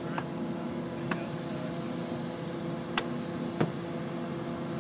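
Steady mechanical hum holding several steady tones, broken by four short sharp clicks. The last two clicks, about three seconds in and half a second apart, are the loudest.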